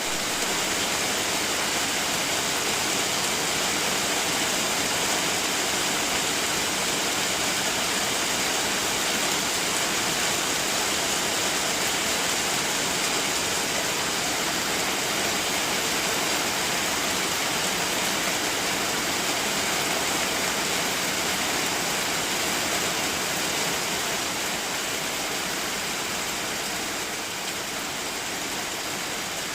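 Steady, even hiss of rushing water with no breaks, easing a little in level near the end.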